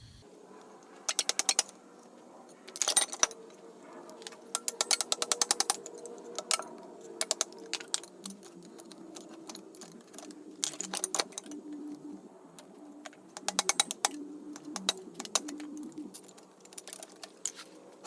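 Hammer striking steel in quick runs of sharp metallic taps, about eight a second, with short pauses between runs: driving the U-joint (wheel joint) caps out of a Ford Super Duty front axle shaft.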